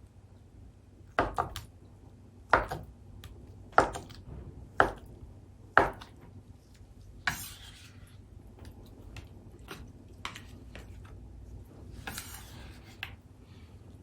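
Kitchen knife chopping on a cutting board in slow single strokes, about one a second, for the first half. After that come lighter taps and two short spells of scraping or rustling.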